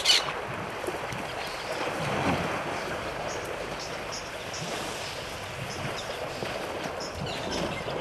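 African elephants splashing and sloshing in a waterhole: a steady wash of water noise mixed with wind on the microphone. A short sharp sound stands out right at the start, and faint high chirps come and go.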